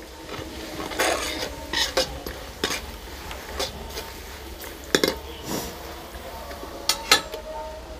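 Steel ladle stirring frying masala in a metal karahi, scraping the pan and clinking against it at irregular moments.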